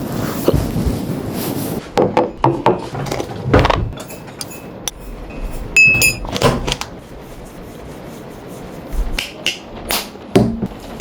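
Scattered clinks and knocks of dishes and glassware being handled, with a brief high ringing tone about five seconds in. A steady rushing noise fills the first two seconds.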